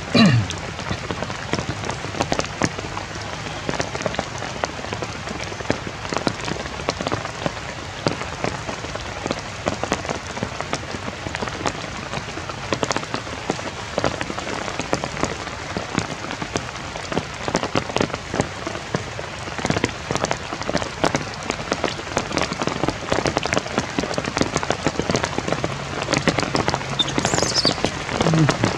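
Steady patter of rain, a dense stream of small drop ticks, with a brief high falling squeal near the end.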